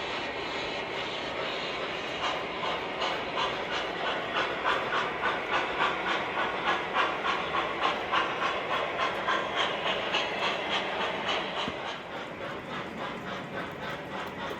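O gauge model steam locomotive's sound system chuffing steadily over a constant hiss, about three chuffs a second. The chuffs come in about two seconds in, are loudest in the middle and grow weaker near the end.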